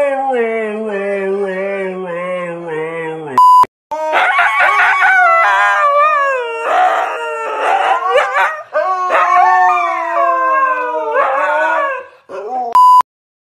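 Huskies howling: first one long howl that slides slowly down in pitch, then two huskies howling and yowling together in overlapping calls that glide up and down. A short steady beep cuts in twice, about three and a half seconds in and near the end.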